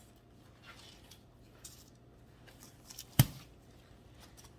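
Faint rustling and handling as proofed bread dough is turned out of a banneton proofing basket, with one sharp knock about three seconds in.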